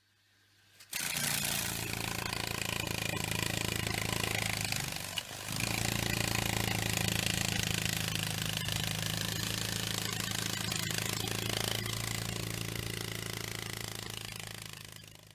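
Beetle wing buzz as a sound effect: a steady, low, rasping buzz. It starts about a second in, dips briefly around five seconds, then carries on and fades out near the end.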